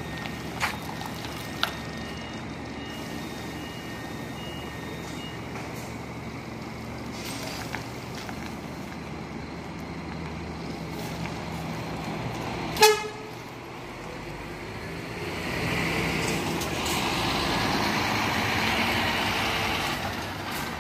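Coach diesel engines running, with a brief horn toot about thirteen seconds in, the loudest sound. A louder rushing noise follows for the last five seconds or so.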